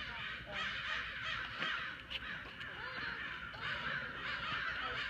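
Many birds calling at once, a continuous chatter of caw-like calls with short chirps mixed in.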